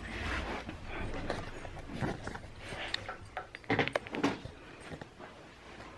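Rustling and handling noises with scattered clicks and knocks, a cluster of sharper knocks about four seconds in.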